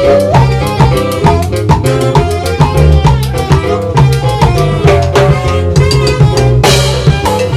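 Live norteño band playing an instrumental passage: saxophone lead over accordion, guitar, bass and drums with cymbals, in a fast steady beat. A saxophone note slides up right at the start.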